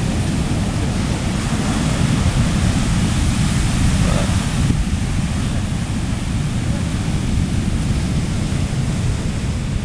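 Heavy hurricane-driven surf breaking on the beach in a steady wash of crashing waves, with strong wind buffeting the microphone.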